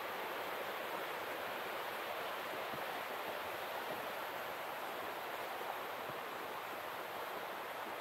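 Steady rush of flowing water.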